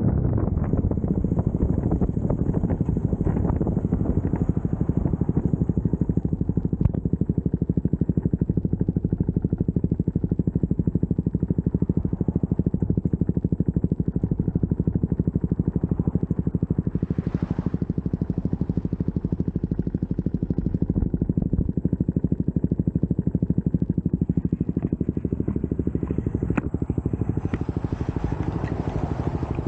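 CFMoto 300SS single-cylinder engine running as the motorcycle slows down and comes to a stop, with wind noise on the microphone.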